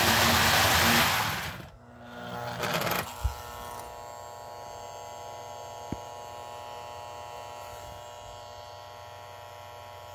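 Lionel O-gauge toy train running loudly on its three-rail track, its noise dropping away suddenly about two seconds in. A steady electric hum with a buzz follows from the 1948 Lionel Santa Fe 2333 F3 set, with a single click about six seconds in.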